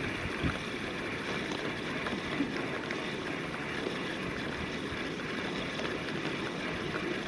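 Steady wind and surf noise, with a spinning reel being cranked to reel in the line.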